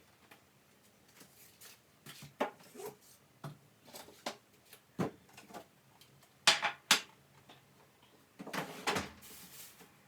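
Household objects being handled: a series of separate knocks and clicks, with two sharp clicks close together about six and a half seconds in and a noisier scraping stretch of about a second near the end.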